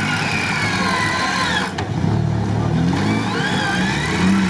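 Off-road 4x4 engines revving hard while stuck in a mud pit. The pitch rises and falls in two surges, with a short dip about one and a half seconds in.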